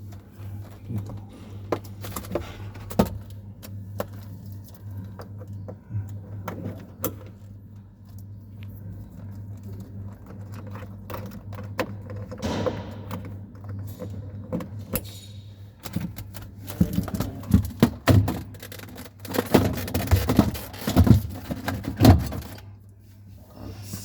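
Metal tools and fittings clinking and clattering as they are handled during the repair, scattered sharp clicks at first and a busier run of clatter past the middle, over a steady low hum.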